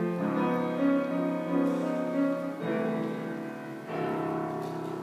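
Keyboard instrument playing sustained chords, changing every second or so and easing off in level toward the end.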